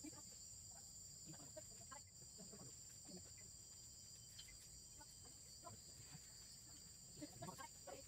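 Faint steady high-pitched drone of insects in the forest, with scattered short faint chirps and clucks over it.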